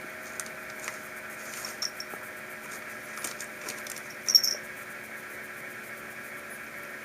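A small bell on a cat's collar jingling briefly a few times, loudest about four seconds in, among light ticks and taps over a steady background hum.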